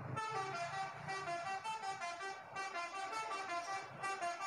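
Indonesian tour bus's multi-tone "telolet" horn playing a quick tune, short horn notes stepping up and down in pitch one after another.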